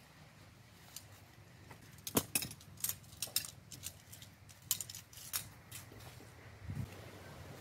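Shock-corded tent pole being shaken out, its sections clicking and clacking together in a quick irregular run of sharp knocks as the pole straightens.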